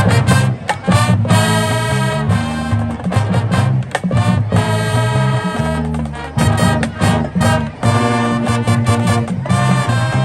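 High school marching band playing: brass chords over a driving drumline beat.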